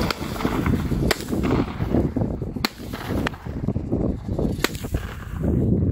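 Consumer fireworks going off: a run of sharp bangs and crackles, with a few louder reports spread through, over a low, irregular rumble.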